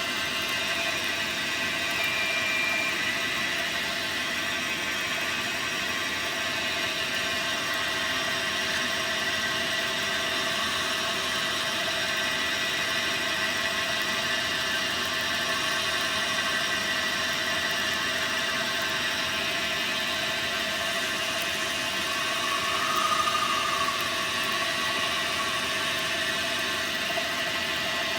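Dyna Mechtronics DM3000 benchtop CNC lathe running while turning a part: a steady machine whine made of several fixed tones. A short squeal comes about two seconds in, and a louder brief squeal comes near the end.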